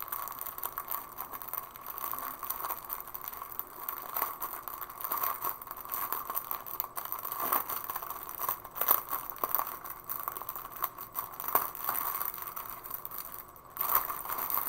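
Clear plastic wrapping crinkling and rustling as hands pull it off a packaged bundle of diamond painting drill bags, a continuous crackle with many small clicks.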